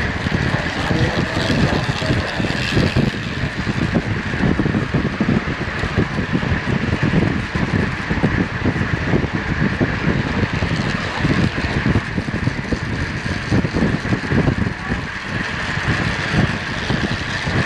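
Heavy wind buffeting on a racing cyclist's onboard camera microphone at about 33 mph, a constant rushing roar with a steady high whir from the track bikes riding close by.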